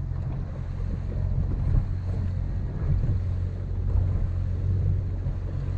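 Boat's outboard motor running steadily while the skiff moves along, a low even hum.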